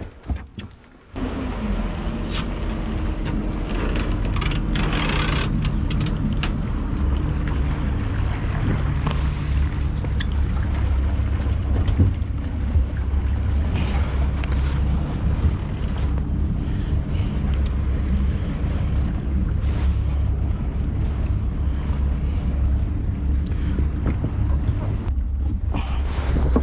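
A motor aboard a boat running steadily with a low hum, starting suddenly about a second in, with wind noise and a few knocks over it.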